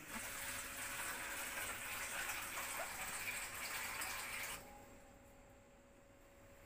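Water running from a wall-mounted water purifier's tap into a stainless steel bowl, stopping suddenly about four and a half seconds in.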